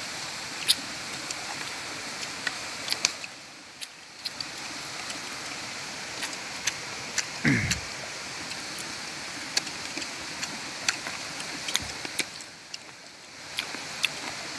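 Steady rushing outdoor background noise with scattered light clicks and taps. The noise drops away briefly twice. A short low sound falling in pitch comes about halfway through.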